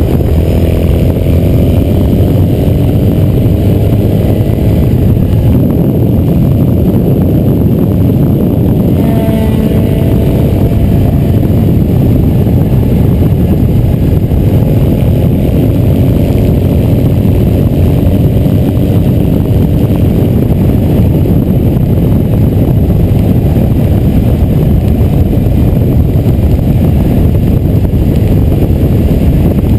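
Triumph Thruxton's parallel-twin engine running at road speed under a steady rush of wind, its pitch shifting over the first several seconds. About nine seconds in, a Triumph Daytona 955i's three-cylinder engine passes close by at speed.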